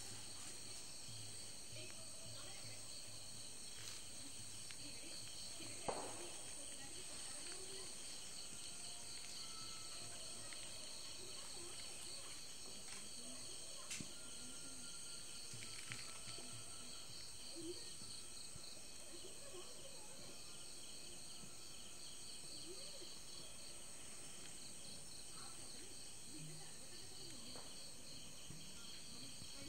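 Night insects, crickets among them, chirping in a steady, pulsing chorus, with a sharp click about six seconds in and a couple of fainter ones later.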